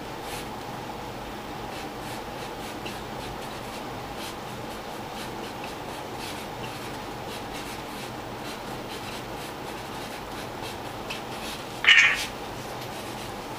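Felt-tip marker writing on a large cardboard display check: faint short scratchy strokes, with one loud, brief squeak of the marker tip near the end. A steady faint hum runs underneath.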